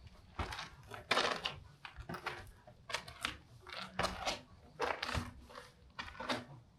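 Footsteps crunching over debris and grit on a ruined floor, about two steps a second, in a small, echoing room.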